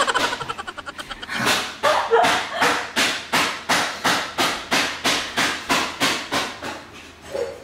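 Rhythmic percussive sound effect: evenly spaced sharp knocks, about four to five a second, after a brief faster rattle at the start.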